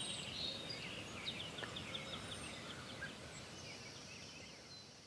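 Faint outdoor ambience: small birds chirping in quick runs over a steady background hiss, the whole fading out near the end.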